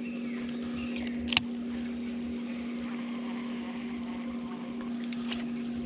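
Bow-mount electric trolling motor running with a steady low hum. Two short sharp clicks come about a second and about five seconds in, as the baitcasting reel is handled.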